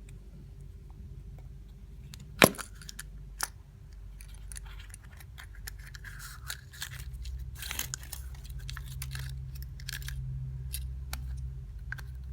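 Small handling noises from a Kinder Surprise egg and its foil wrapper: scattered light clicks, one sharp click about two and a half seconds in, then several seconds of crinkling and rustling, over a low steady hum.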